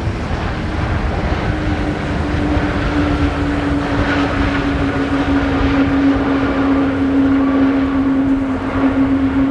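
Airbus A340-500's four Rolls-Royce Trent 500 jet engines running at taxi power: a steady jet drone over a low rumble, with a hum that sinks slowly in pitch.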